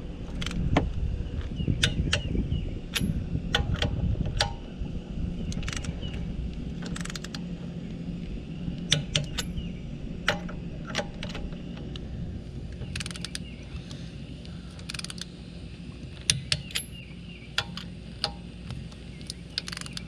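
Irregular metallic clicks and clinks of a socket wrench working lug nuts as a car wheel is bolted on, some with a short ring. A low rumble sits under them in the first few seconds.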